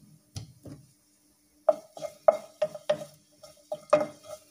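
Wooden spatula stirring garlic in hot oil in a nonstick frying pan, scraping and knocking against the pan in a quick run of strokes, about four a second, that starts about a third of the way in. A light sizzle of the garlic frying runs under the strokes.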